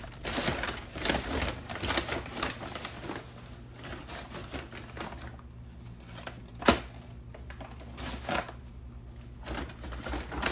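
Irregular clattering and knocking of kitchen items being handled and packed, with one sharper knock about two-thirds of the way in.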